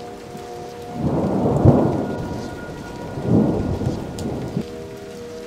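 Steady rain falling with thunder rumbling: one roll swells about a second in and peaks soon after, and a second, weaker roll follows around three seconds in before fading.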